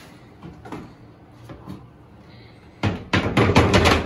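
Painted plywood hatch panel being handled and fitted into its recessed opening: a couple of light knocks, then a loud burst of rapid wooden knocking and clattering near the end.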